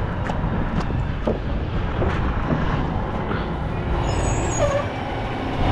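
A concrete mixer truck's diesel engine running with a heavy low rumble. A high-pitched brake squeal joins about four seconds in.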